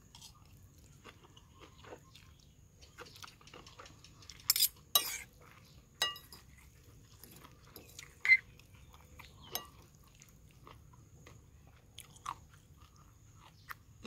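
Metal spoon and fork clinking and scraping against a bowl as a noodle salad is mixed and scooped, with sharp knocks about four and five seconds in, a short ringing clink at six seconds and another loud clink just after eight. Soft chewing between the clinks.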